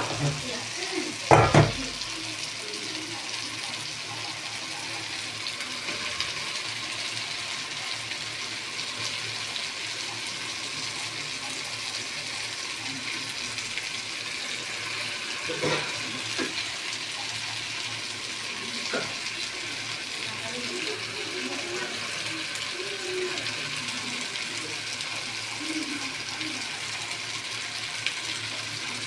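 Steady sizzling of fish curry frying in a pan, with a few sharp knocks of a utensil against the pan, the loudest about a second and a half in.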